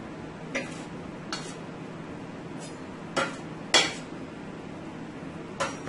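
A metal utensil clinking against the gas stove's cast-iron burner grate, about six sharp, irregular knocks, as a sada roti is turned directly over the open flame. The loudest knock comes nearly four seconds in.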